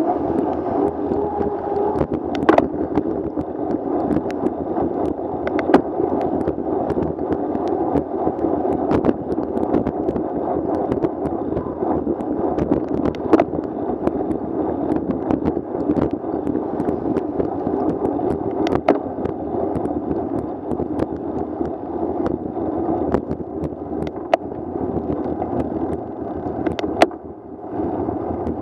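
Steady rushing road noise of a bicycle ridden in the rain on wet pavement: tyre spray and wind, with scattered sharp ticks. The noise dips briefly near the end.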